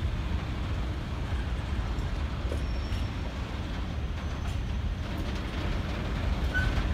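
Freight train wagons rolling past on the rails with a steady low rumble, and a short squeal near the end.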